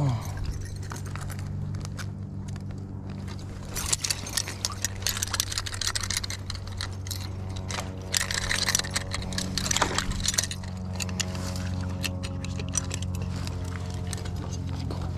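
Steel foothold trap and its chain clinking and rattling as they are handled by gloved hands, in many short scattered clicks from about four seconds in, over a steady low hum.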